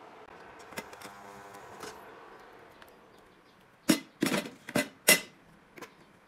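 Stainless steel pot being set down into a thermal cooker and the cooker's lid being closed: four sharp metal-and-plastic clunks in just over a second, past the middle, then a small click.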